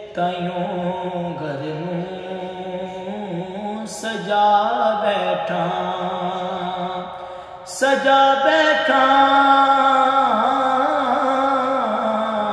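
A young man singing a Punjabi naat unaccompanied, in a slow classical style with long, wavering held notes. Three long phrases, with short breaks about four and seven and a half seconds in.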